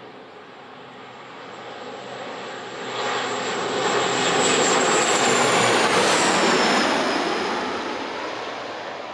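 Airliner on final approach passing low overhead to land: its engine noise builds over a few seconds, peaks and then fades, with a high whine that drops in pitch as it goes past.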